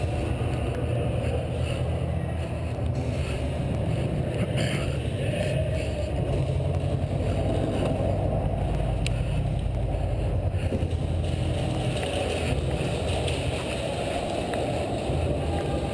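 Steady low rumble with rustling: handling and movement noise on a helmet-mounted external microphone as the player walks.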